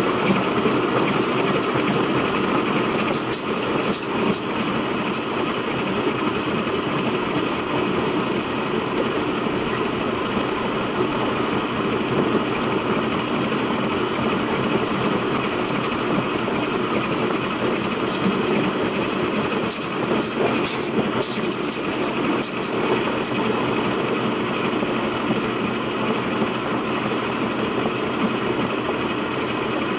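Motor-driven grinding mill with a metal funnel hopper running steadily as ginger is fed in and ground into powder. A few short sharp ticks come about three to four seconds in and again around twenty seconds in.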